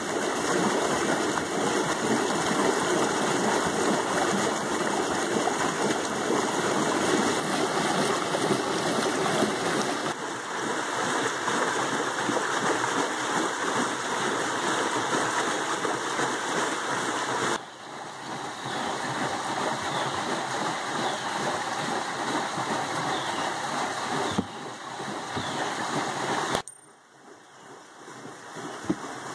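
Creek water rushing and splashing through a small water wheel, a steady noise, dropping to a quieter level near the end.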